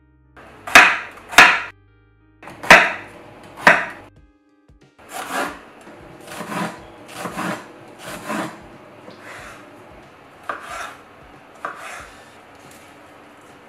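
Close-miked eating sounds: a series of crisp crunching bites, four loud ones in the first four seconds, then softer crunches about a second apart.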